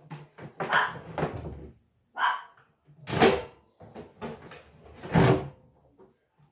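Kitchen appliances and their crocheted covers being handled and set down on a countertop: about five separate knocks and clunks, the loudest near the middle and near the end.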